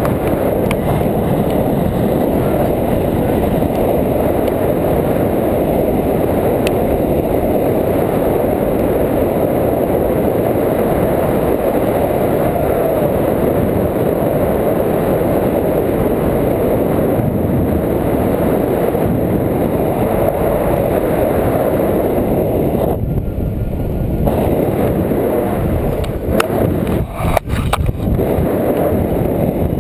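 Steady, loud rush of wind buffeting a GoPro's microphone as a tandem paraglider flies, easing briefly a couple of times near the end.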